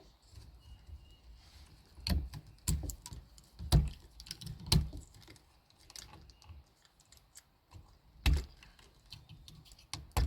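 Parts of a Genie garage door opener being handled during disassembly: irregular sharp knocks and clicks of hard plastic and metal, with lighter rattling between. The loudest knocks fall about two to five seconds in and again past eight seconds.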